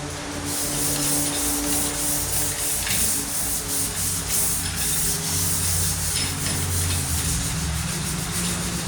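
Sandpaper being rubbed by hand in quick back-and-forth strokes over the primed steel of a truck tailgate, block-sanding the filler primer.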